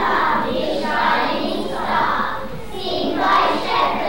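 A choir of young children singing together in sustained phrases.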